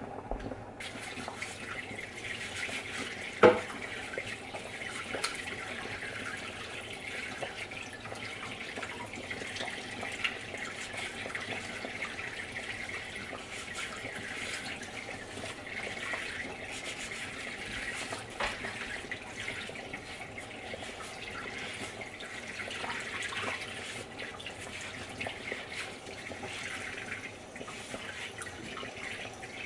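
Kitchen tap running steadily into a sink while utensils are washed under it, with a few light clicks. A single loud knock about three and a half seconds in.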